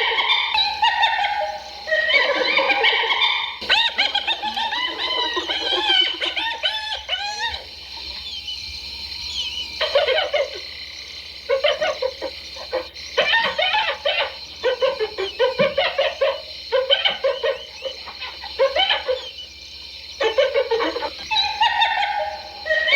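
Spotted hyenas giggling: high, wavering laughing calls, then from about ten seconds in, runs of short, choppy cackling notes.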